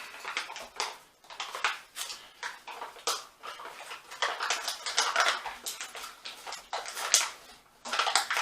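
A dog sniffing and snuffling at food up close, mixed with a spoon scraping and rustling inside a foil meal pouch; short irregular bursts of noise.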